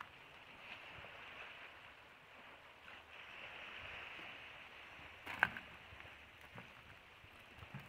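Faint hiss of small sea waves washing in, swelling and easing, with one sharp click about five seconds in.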